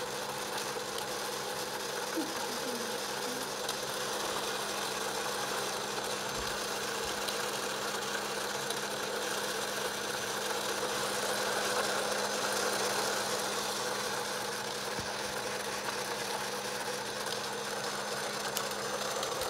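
Small electric motor of an egg-decorating spinner running with a steady hum as it turns an egg.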